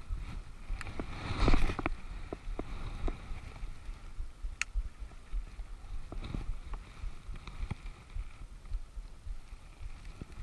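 Low rumble on the microphone with scattered light clicks and knocks, and one louder knock with a rustle about a second and a half in.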